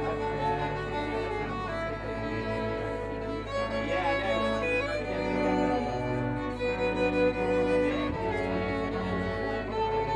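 String ensemble music: violins playing a slow melody of held notes over a lower bowed part.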